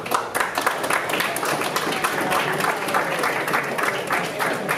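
Applause from a small crowd: many hands clapping quickly and unevenly.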